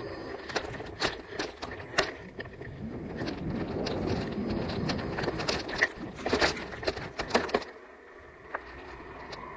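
E-bike rolling along a dirt forest trail: tyre noise on the ground with frequent clicks and knocks as the bike and camera mount rattle over bumps and roots. It goes quieter and smoother for a moment about eight seconds in, then picks up again.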